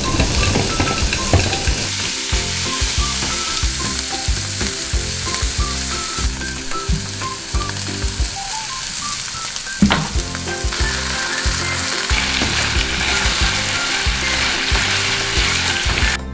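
Minced pork sizzling as it stir-fries in a frying pan with chopped green peppers, stirred with a spatula. A single sharp clack about ten seconds in.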